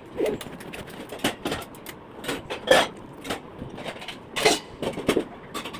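Irregular clatter of hard objects being handled, a dozen or so quick knocks and clicks, the loudest a little under halfway through and about three-quarters of the way in.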